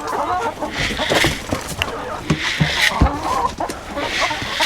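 A flock of chickens clucking, with one dull thump about three seconds in.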